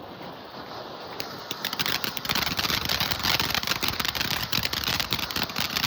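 Consumer firework going off: a hiss, then a dense, fast crackle of many small pops that starts about a second and a half in and grows louder.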